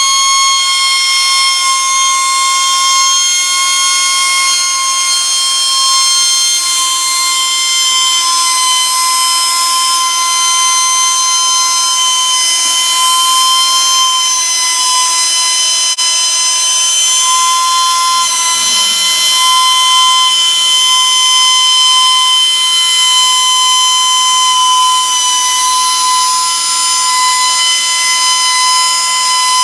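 LarsLap Model C1 valve grinder running continuously while grinding a valve's gasket seating face, giving a steady high whine. A lower hum joins about eighteen seconds in.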